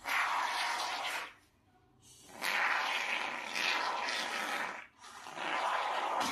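Aerosol can of expanding polyurethane foam spraying in three hissing bursts, about a second, two and a half seconds and one second long, with short pauses between.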